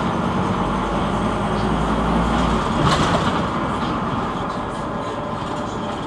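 Cabin noise inside a Scania NewOmnicity city bus on the move: steady engine and road noise. The engine's low hum fades about two and a half seconds in, with a single knock just after.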